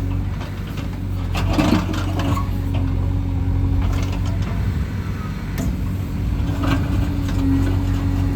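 Diesel engine of heavy construction machinery running steadily, with several short metallic clanks and knocks over it.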